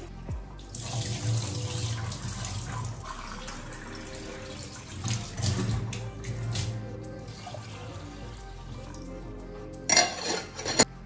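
Kitchen tap running into a pot of rice as the rice is washed, the water coming in two stretches, with music playing underneath. A few sharp knocks near the end.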